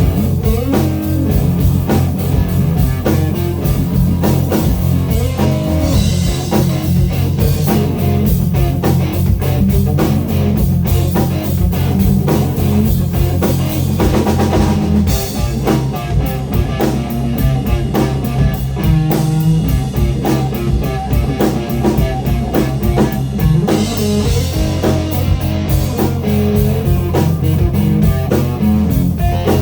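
Live blues-rock band playing: electric guitar over a bass line and a drum kit, steady and loud.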